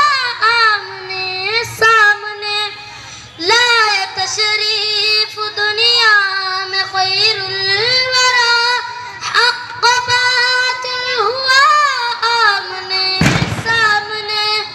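A boy singing a naat, a devotional Urdu hymn, solo into a microphone, drawing out long wavering notes. A brief thump sounds near the end.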